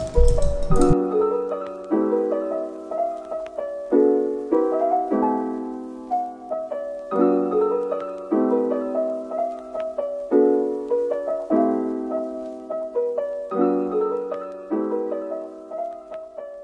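Background music: a gentle piano tune, a chord struck about once a second and fading before the next.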